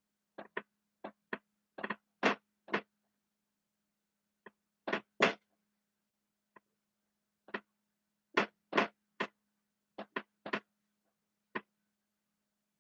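A marker pen writing letters on a whiteboard: about twenty short strokes in irregular groups, with brief pauses between them.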